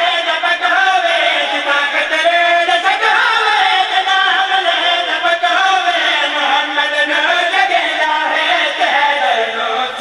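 Men's voices chanting a devotional verse of a Muharram majlis recitation in long held, sung lines, several voices together, amplified through a microphone.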